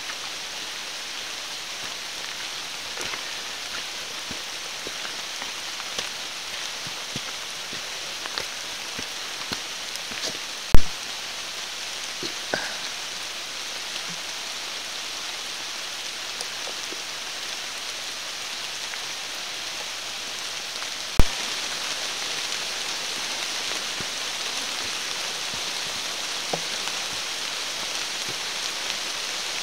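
Steady rain falling on the forest around the hiker, a continuous hiss with scattered drops ticking close by. There are two sharp knocks, about 11 and 21 seconds in, and the rain is a little louder after the second one.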